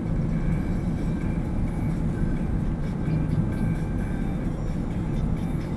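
Steady low road and engine rumble of a car driving at a constant speed, heard from inside the cabin.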